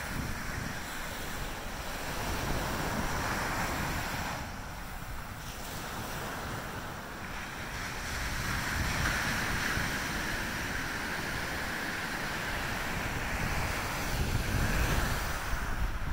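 Ocean surf breaking and washing up a sand beach, swelling and fading three times, with wind rumbling on the microphone.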